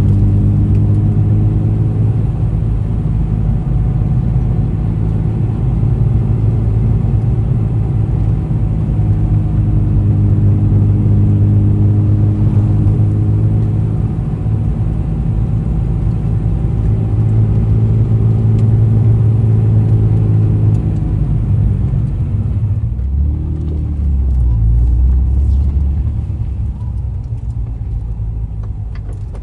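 Honda NSX's V6 engine and titanium exhaust running at steady revs. The note drops lower about 23 seconds in and eases off slightly near the end.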